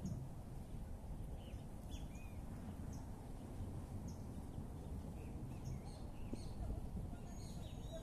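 Small birds chirping, with short high calls scattered throughout, over a steady low rumble of outdoor ambience.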